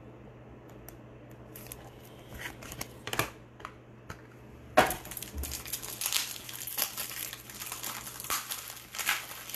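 A plastic trading-card pack wrapper crinkling as it is handled and opened, after a few light clicks and taps. The crinkling turns dense and continuous about five seconds in.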